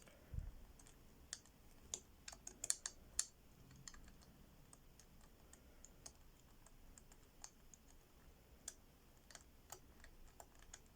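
Faint, irregular clicking of an Abus 158CS/65 combination padlock's number wheel being turned by finger from digit to digit, a cluster of slightly louder clicks about two to three seconds in. The wheel is being felt for where it turns loose or stiff while decoding the lost code.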